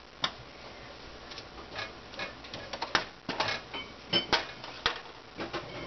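A spoon stirring roasted broccoli on a foil-lined baking sheet: irregular scrapes and clicks of the spoon against the foil and pan.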